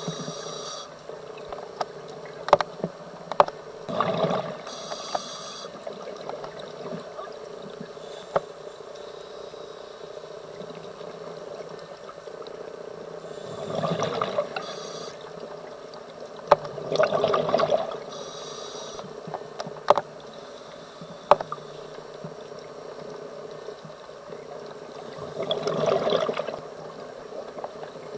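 Scuba diver breathing through a regulator underwater: four loud bursts of exhaust bubbles several seconds apart, with a steady hum and scattered sharp clicks between them.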